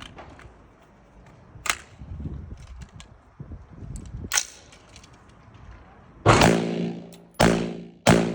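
Gunshots at a shooting range. A couple of fainter sharp shots come early on, then from about six seconds in come loud shots in quick succession, each followed by a ringing tail.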